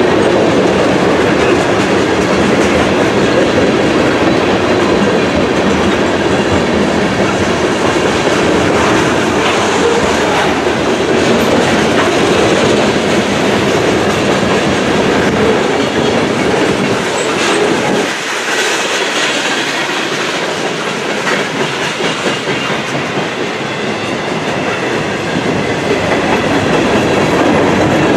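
Freight train cars rolling past with steady wheel-on-rail noise. The deep rumble thins out for several seconds past the middle, then comes back.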